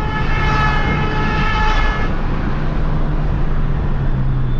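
Car horn held steadily for about two seconds, then released, over the steady engine hum and road noise of a moving car heard from inside its cabin.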